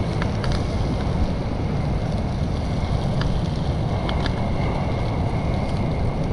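Strong wind buffeting the microphone in a steady low rumble, over the wash of surf. A faint, steady high whine runs underneath, with a few light ticks.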